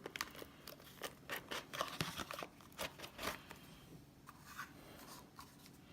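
Faint handling noises: scattered light clicks, taps and rubbing as a Zippo lighter and its presentation box are handled.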